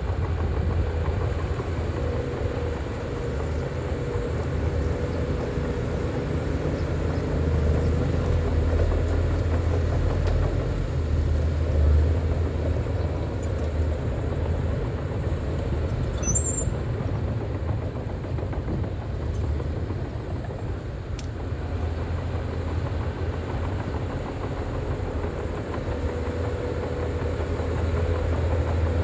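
Bulldozer's diesel engine running steadily with a low rumble, working the machine across the site.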